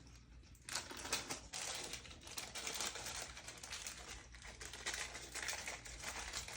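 Crinkling of a small plastic hardware bag and light clicking of small parts being handled, starting just under a second in and going on irregularly.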